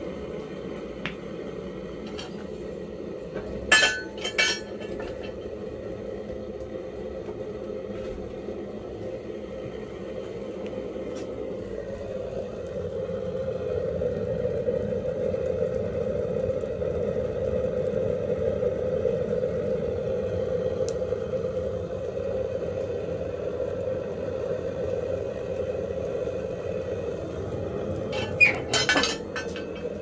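A homemade steel barrel wood stove being loaded with firewood: metal clanks about four seconds in and again near the end. Between them the fire and the butane torch at the firebox mouth make a steady rush that grows louder in the middle.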